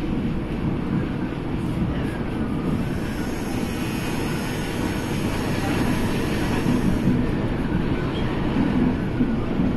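Düsseldorf SkyTrain, a rubber-tyred suspended monorail car, running along its overhead track, heard from inside the cabin: a steady rumble, with a faint high whine for a few seconds midway.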